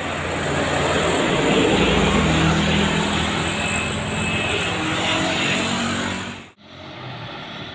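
Diesel engine of a medium bus working hard as it climbs a steep hill and passes close by, loudest about two seconds in, with dark exhaust smoke showing its heavy load. The sound cuts off abruptly about six and a half seconds in, leaving quieter road background.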